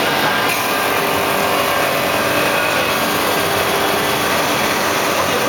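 CNC wood lathe running and cutting a spindle blank: a steady, loud machining noise with a faint motor hum underneath, without pauses.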